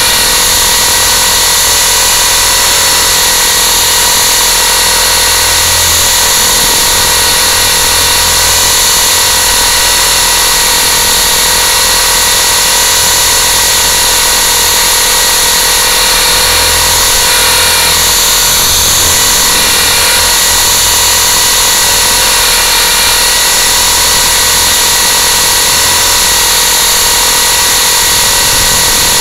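Electric RC aircraft's motors and rotors, heard from its own onboard camera while it hovers: a loud, steady, high-pitched machine whine with a noisy wash, shifting a little now and then as the throttle is worked.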